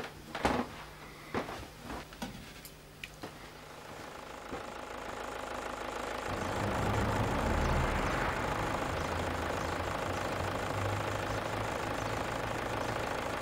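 A few sharp knocks and clicks, then a van engine running, building up about six seconds in to a steady low hum.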